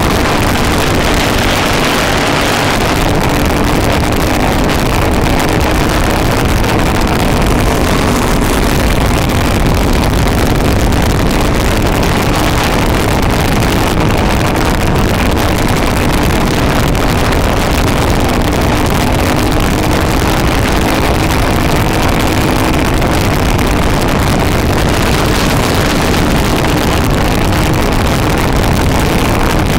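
Racing go-kart's small single-cylinder engine running hard at race speed, its note rising and falling slightly through the turns, with heavy wind noise on the microphone.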